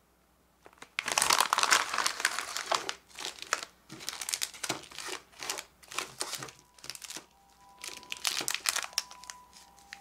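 Clear plastic wrappers of individually packed potato chips crinkling as they are pulled out of a foil-lined snack bag and spread on a table: a long run of loud crinkling about a second in, then shorter crinkling bursts.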